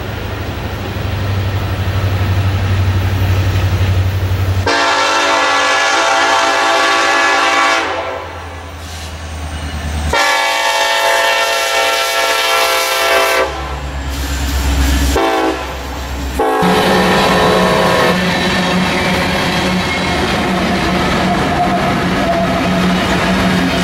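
Diesel locomotive engine rumbling, then a freight locomotive's air horn sounding a series of long blasts with a short one near the end, like a crossing signal. After that the lead diesel locomotives pass with a steady heavy engine rumble and rolling wheels.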